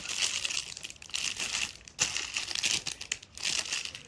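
Clear plastic bags holding gold ball cake toppers crinkling as they are handled, in irregular bursts with brief pauses between.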